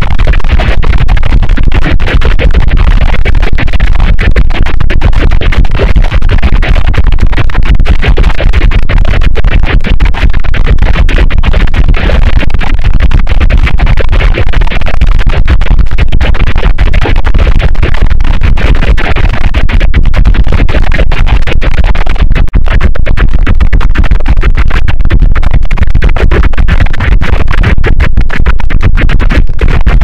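Harsh, heavily distorted and clipped effects-processed noise, steady and very loud throughout, made from the sound of water pouring from a fountain and heard more like electronic music than water.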